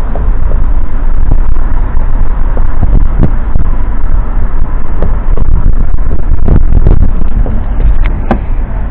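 Loud low rumble of wind buffeting the camera's microphone, with a few scattered knocks from the camera's movement.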